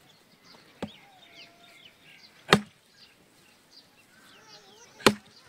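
Three sharp knocks a couple of seconds apart, the second and third much louder than the first, with small birds chirping throughout.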